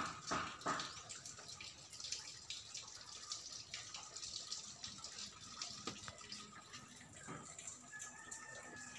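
Faint dripping and trickling of water, with a few sharper short sounds in the first second and a brief thin whistle-like tone near the end.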